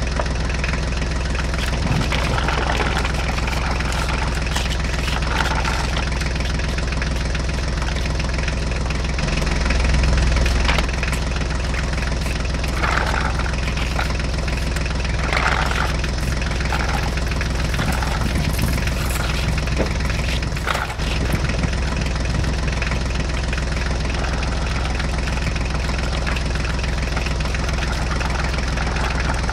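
Tractor engine running at a steady low idle-like drone, swelling briefly about ten seconds in.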